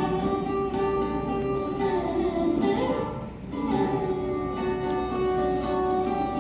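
Background music with plucked guitar and sustained string notes.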